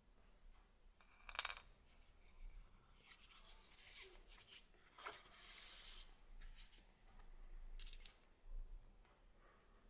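Faint handling sounds of small rebuildable-tank parts and the foam packaging insert: a sharp light click about a second in, rubbing and rustling from about three to six seconds, and another click near eight seconds.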